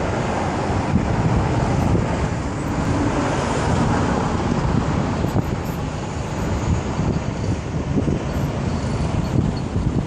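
Steady road traffic noise from cars and trucks passing on a busy highway.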